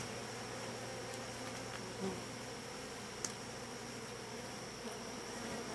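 Honeybees buzzing steadily on and around comb frames lifted from an open hive, with a faint click about three seconds in.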